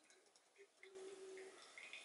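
Faint trickle of a thin stream of hot water poured from a gooseneck drip kettle onto coffee grounds in a stainless steel mesh filter, with small drips.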